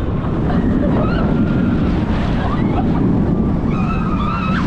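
Heavy wind rushing over the microphone of a rider on a moving roller coaster, a steady loud rumble, with riders' voices faintly through it.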